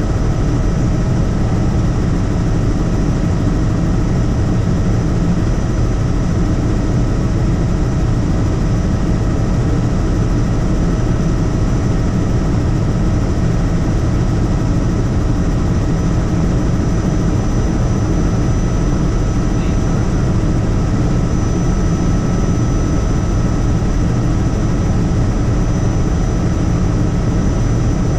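Helicopter in flight: a loud, steady drone of engine and rotor, with a thin high whine running through it and no change in pitch or level.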